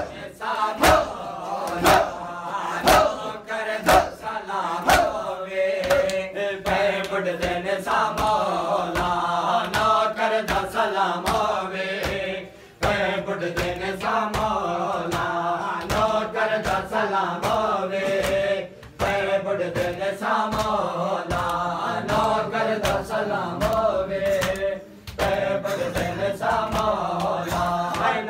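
Group of men chanting a Shia mourning lament together while beating their chests in matam. The chest slaps fall about once a second at first, then come faster under the chanting, with short breaks between lines.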